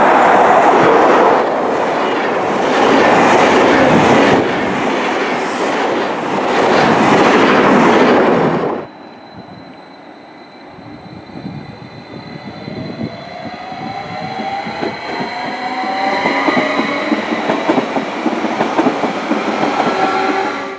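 SBB Re 460 electric locomotive and its coaches passing at speed: a loud rush of wheels on rails. About nine seconds in, a cut to a quieter Stadler FLIRT electric multiple unit approaching, its traction equipment whining in several tones over the rolling noise, growing louder as it comes close.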